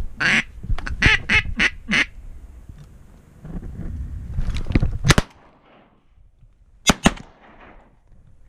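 A quick run of about six loud duck quacks in the first two seconds, then shotgun shots: one about five seconds in and two close together near seven seconds.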